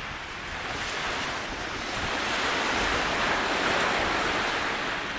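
North Sea waves washing onto the beach, the surf swelling about two seconds in and easing near the end, with wind on the microphone.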